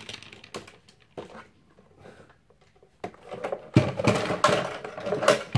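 Hands handling a plastic RC car and its cardboard packaging. Scattered clicks and rustles give way, about three seconds in, to a louder run of knocks and clatter as the car is turned over.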